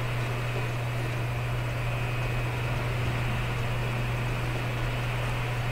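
A steady low hum with an even hiss behind it, unchanging throughout; no music or beat is heard.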